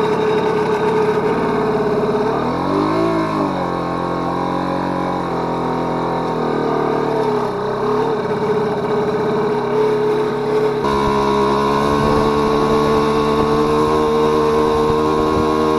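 Motorcycle engine running under load as it pushes a broken-down scooter along by the rider's foot. Its speed sags and picks up again about three seconds in, and its note changes to a new steady pitch about eleven seconds in.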